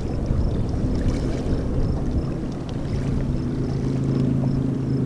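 Wind rumbling on the microphone by open water. About three seconds in, a steady low motor hum joins it, and faint high ticks repeat a few times a second.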